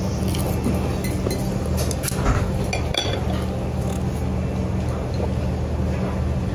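A few light clinks of tableware and a drinking glass at the table, the clearest two a little under a second apart near the middle, over a steady low hum.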